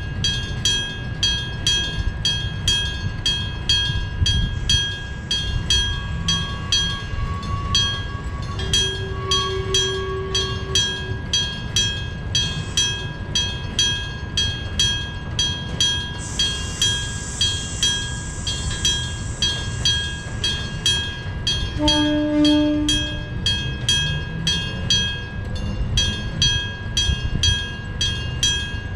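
Japanese electric-bell level crossing ringing: a struck bell at a steady rate of about two strikes a second. Under it a train runs past with a low rumble, and a train horn sounds briefly twice, about nine and twenty-two seconds in.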